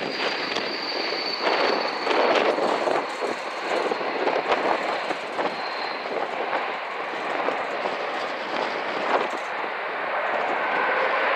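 Swiss Bombardier CS300 (Airbus A220-300) airliner landing, its Pratt & Whitney PW1500G geared turbofans giving a steady rushing roar with a thin high whine slowly falling in pitch. The roar swells louder near the end.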